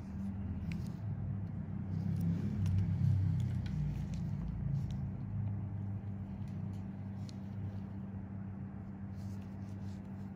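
A steady low machine hum, swelling a little about three seconds in, with a few faint small clicks over it.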